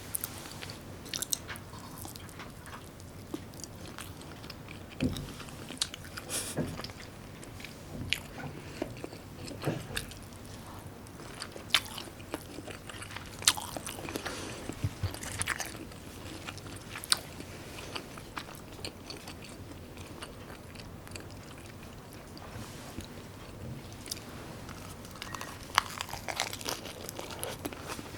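Close-up sounds of a person chewing and biting food, with irregular crunches, clicks and mouth smacks.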